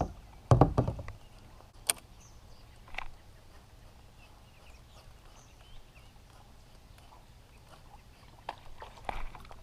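A few knocks and clicks of rod-and-reel handling against a plastic kayak, the loudest about half a second to two seconds in, then a quiet open-air stretch with faint distant bird chirps.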